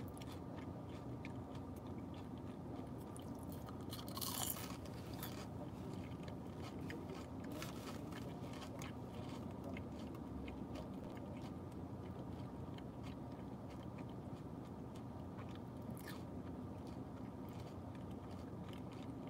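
Close-up chewing of a crunchy churro: small crackling crunches throughout, with a louder crunch about four seconds in.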